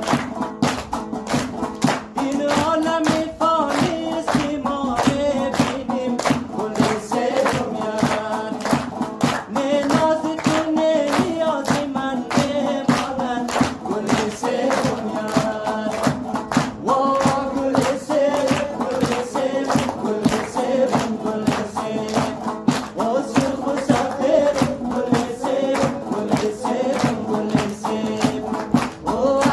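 Background music: a song with singing over a quick, steady drum beat.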